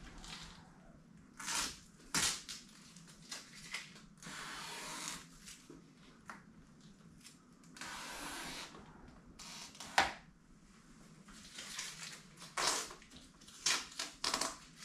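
Adhesive tape on a plastic window visor being peeled and pressed by hand: irregular short rustles and ripping swishes, none longer than about a second, with a sharp tap about ten seconds in.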